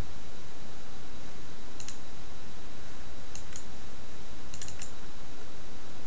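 Computer mouse-button clicks, about six short, sharp clicks, some in quick pairs and a quick run of three a little before the end, over a steady background hiss.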